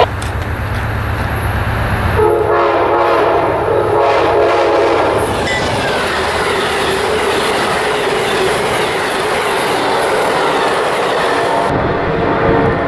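Amtrak passenger train led by a GE Genesis diesel locomotive passing close by at speed. Its air horn starts sounding about two seconds in and holds a steady chord as the locomotive goes by, over the rumble and clatter of wheels on rail.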